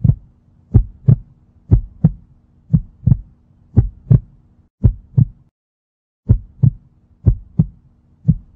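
Heartbeat sound effect: paired thumps at about one beat a second over a faint steady hum. It cuts out for under a second a little past halfway, then resumes.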